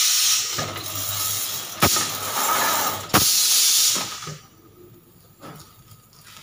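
Compressed-air ink spray gun hissing as it sprays ink, with two sharp clicks about two and three seconds in, then stopping about four seconds in.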